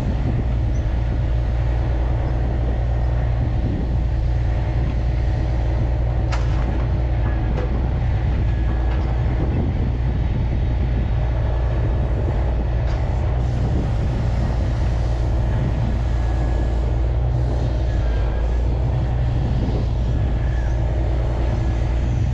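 Truck engine running with a steady low drone.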